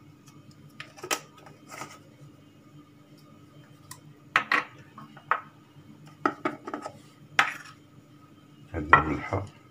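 Clinks and knocks of metal spice containers, their lids and a spoon being handled over a clay dish while spices are shaken out: short scattered clicks and little clusters of taps, the loudest near the end.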